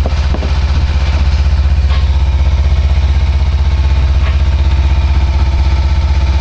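Kawasaki Ninja 300's parallel-twin engine idling steadily through a freshly fitted Leo Vince carbon fibre exhaust, loud with an even, rapid pulse.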